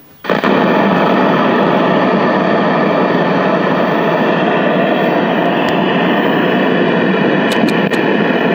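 Loud steady static hiss from the speaker of a 1968 RCA Victor black-and-white tube TV, switching on suddenly a fraction of a second in once the wire to the remote-control muting circuit is terminated. A few faint ticks sound near the end.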